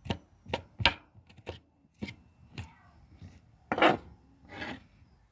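Knife scraping and cutting the spines off a nopal (prickly pear cactus pad): about nine short, separate strokes. The loudest and longest strokes come near the end.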